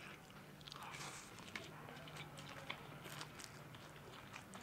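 Faint eating sounds of chow mein noodles being slurped and chewed, with scattered short wet clicks.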